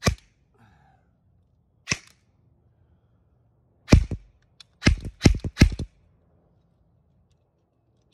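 VFC Avalon PDW airsoft electric rifle (AEG) firing single shots: three about two seconds apart, then a quick string of about six shots around five seconds in.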